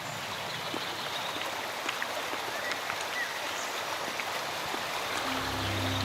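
Stream water running and babbling steadily. Soft music comes in near the end.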